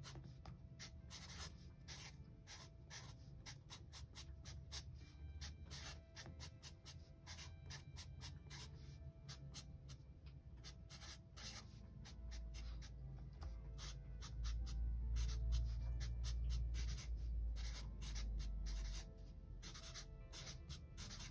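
Sharpie marker writing block letters on sketchbook paper: a quick run of short strokes throughout. A low rumble swells for several seconds in the second half.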